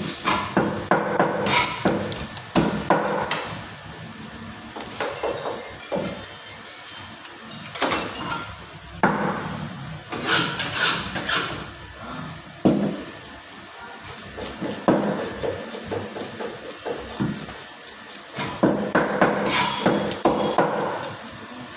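Knife and cleaver working karimeen (pearl spot) fish on a wooden cutting board: irregular knocks and chops on the board with bursts of scraping as the blade goes over the fish.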